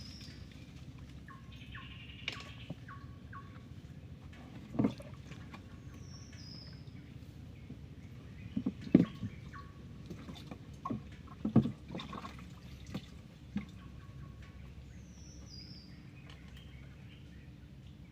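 Outdoor waterside ambience: a few short water splashes and knocks, the loudest about nine and eleven and a half seconds in, with birds calling. One bird gives a high falling chirp three times, and quick short notes repeat in the first few seconds.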